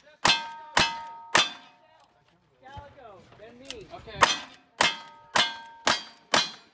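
Revolver shots on steel targets, each crack followed by the ring of the struck plate. Three shots come about half a second apart, then a pause of nearly three seconds, then five more at the same pace.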